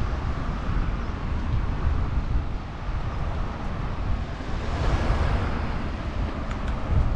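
Wind buffeting the microphone of a camera riding along on a moving bicycle, a heavy uneven rumble with hiss over it. A rush of noise rises and fades about five seconds in.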